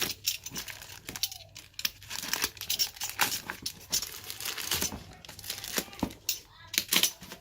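Plastic packaging crinkling and rustling in irregular crackles as a boxed keyboard is handled and unwrapped.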